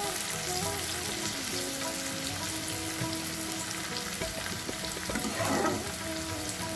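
Diced potatoes and chopped tomato sizzling as they fry in oil in a pan, with a few knocks and scrapes of the stirring spoon, the loudest swell about five and a half seconds in.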